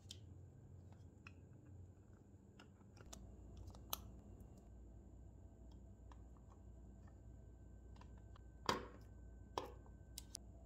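Faint scattered clicks and taps of small plastic parts being handled and pressed onto a scale model car body, with two louder sharp clicks about a second apart near the end.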